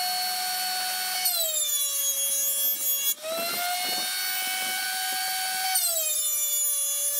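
Benchtop thickness planer running with a high motor whine as a hardwood board is fed through on light passes. The whine drops in pitch about a second in and again near six seconds, rising back in between.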